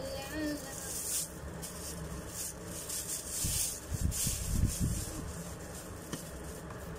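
Thin clear plastic bag crinkling and rustling as it is pulled off and handled, in a series of uneven crackly bursts. A few dull bumps of handling come about halfway through.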